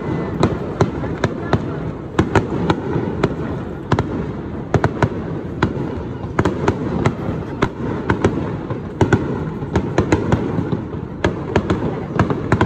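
Aerial fireworks shells bursting: sharp bangs and pops come thick and irregular, several a second, over a continuous low rumble.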